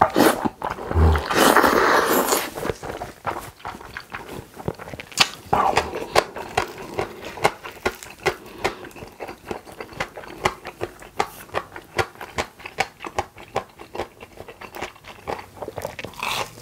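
Close-miked eating sounds: a loud slurp of spicy carbonara instant noodles in the first two seconds, then wet chewing with many small mouth clicks, and a second shorter slurp or suck about five seconds in.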